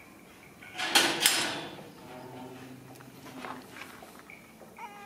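Two sharp knocks about a quarter second apart, then a faint low hum, and a short squeal falling in pitch near the end.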